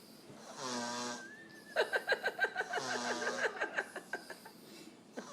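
A sleeping toddler snoring: a short snore about half a second in, then a longer rattling snore of about three seconds, made of rapid pulses with a thin whistling tone over them.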